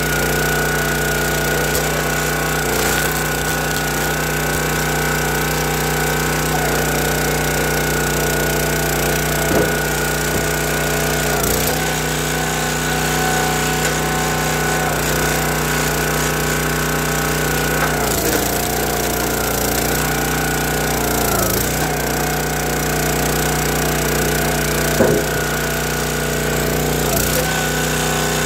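County Line gas-engine log splitter running steadily, its engine pitch sagging briefly a few times as it takes load while the ram splits red oak and maple. A few sharp knocks stand out over the engine.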